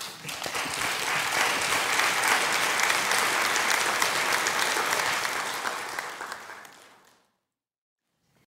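Audience applauding, then dying away to silence about seven seconds in.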